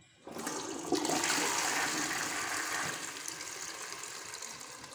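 Newly installed push-button toilet flushing. Water rushes into the bowl about a third of a second in, is loudest for the next couple of seconds, then slowly tapers off.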